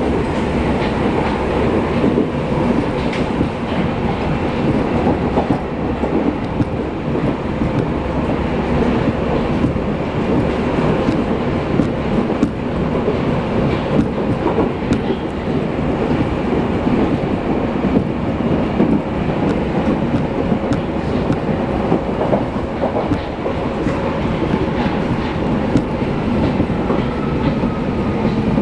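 Berlin U-Bahn F-series train running at steady speed through a tunnel, heard from inside the carriage: continuous wheel and rail noise with a low steady hum and some rhythmic clatter over the track.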